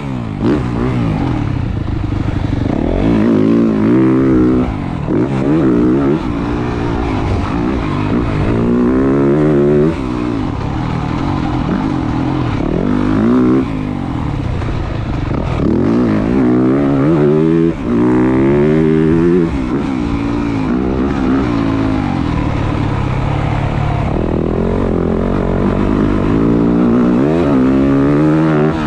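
2023 Yamaha YZ450F's single-cylinder four-stroke engine being ridden hard, its pitch climbing and falling over and over as the throttle is opened and shut, with several sudden drops.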